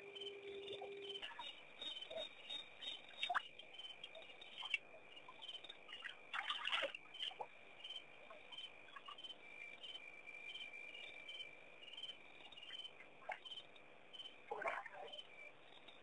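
Night chorus of crickets: one steady high trill, with another caller chirping about twice a second. A few short soft knocks break in now and then.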